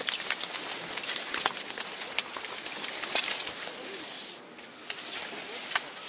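Freshly caught small-mouth smelt flopping on the ice, a quick irregular patter of small wet slaps that thins after about four seconds to a few louder single slaps.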